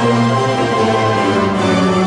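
Mandolin orchestra of mandolins, mandolas, guitars and double basses playing an overture at full ensemble, loud and continuous, over held bass notes.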